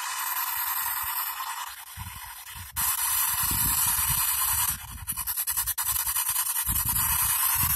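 P-SB7 spirit box sweeping through radio stations: a steady rush of white-noise static that switches abruptly every second or so, with fast ticking from the sweep. Choppy low bursts break through twice.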